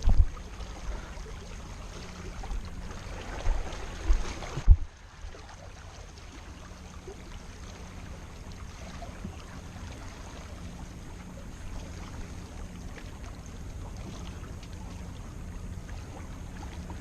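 Steady low rumble with a faint constant hum, broken by several heavy thumps in the first five seconds; about five seconds in the noise drops suddenly to a quieter steady rumble.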